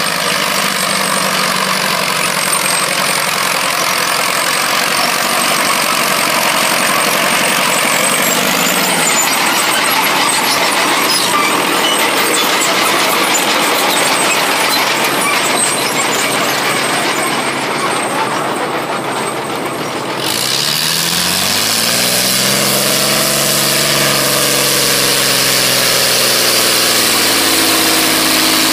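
Fiat 1300 tractor's diesel engine working hard under load while pulling a plough, a loud, rough running noise. About two-thirds of the way through, the engine's pitch climbs, then eases and holds steady as it pulls.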